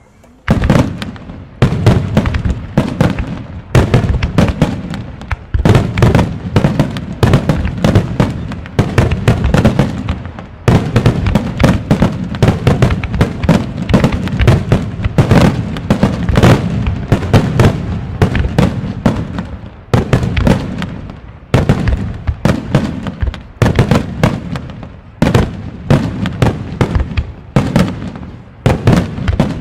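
Fireworks wide starmine: a rapid barrage of aerial shell bursts, dozens of loud bangs in quick succession that start about half a second in and keep going with only brief lulls.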